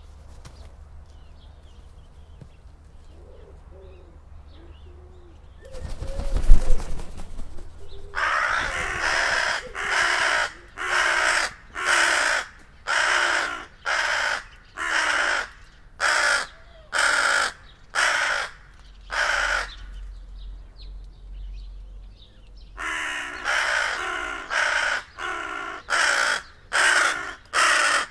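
A crow cawing alarm calls at a hunting cat, one caw about every second, in two long bouts with a pause of about three seconds between them. About six seconds in, before the calling starts, there is a brief loud rustle and thump.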